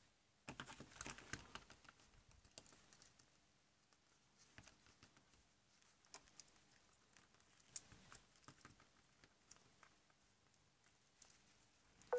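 Faint, scattered clicks and light scrapes of a small metal tool picking at the solder tags of a Linn Axis turntable motor's stator. There is a short flurry of them about half a second in, single ticks every second or two after that, and a louder cluster at the end.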